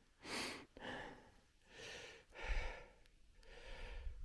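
A hiker breathing hard and close to the microphone, about one breath a second, with the exertion of a steep mountain climb. A low rumble comes in briefly about two and a half seconds in and again near the end.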